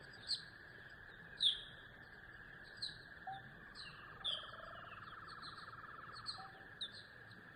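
Birds chirping: short, sharp, high chirps that drop in pitch, repeating irregularly about once a second, with a faint buzzy trill for a few seconds in the middle and a steady high hiss underneath.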